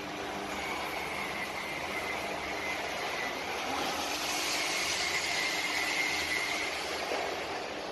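Steady machinery noise of a metal fabrication shop floor: a broad hiss with a faint high whine and a low hum, growing a little louder in the middle and easing near the end.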